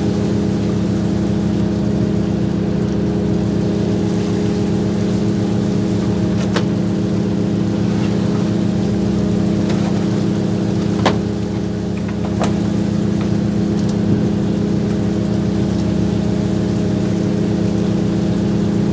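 A fishing boat's engine and deck machinery running with a steady, even hum. A few sharp knocks from work on deck cut through it, the loudest about eleven seconds in.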